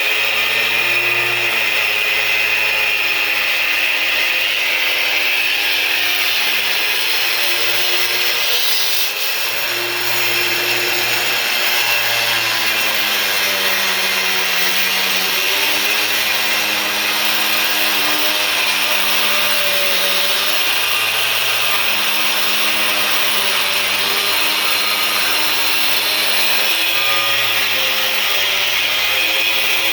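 A power tool's motor running continuously, its pitch sagging and recovering slightly over several seconds as the load changes, with a steady cutting hiss.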